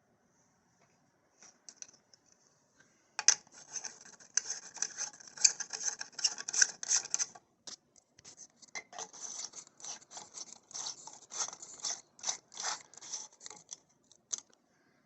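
Scratching, grinding and clicking of screw threads as a light bulb and a screw-in remote switch adapter are twisted into a light socket, starting about three seconds in and going on in irregular strokes.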